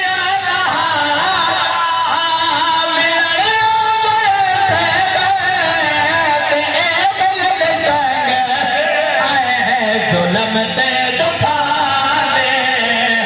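A man's voice singing a slow, wavering, ornamented melodic lament, drawing out long notes that slide up and down: a zakir's sung mourning recitation.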